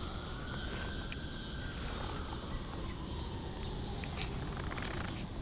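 Quiet outdoor background: a steady hiss with a faint high chirring, and a faint tone that rises and then falls over the first few seconds.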